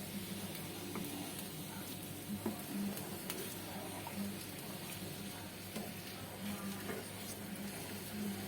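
Stuffed tofu frying in hot oil: a steady sizzle with scattered short clicks.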